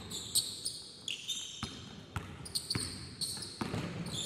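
Basketball dribbled on a gym floor during play, an irregular series of sharp bounces, with short high-pitched sneaker squeaks on the court.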